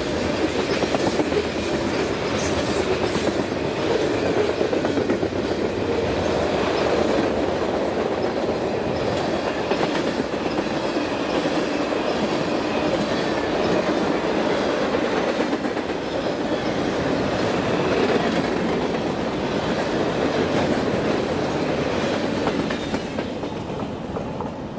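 BNSF freight train cars rolling past, steel wheels clacking steadily over the rail joints with a continuous rumble, fading out at the very end.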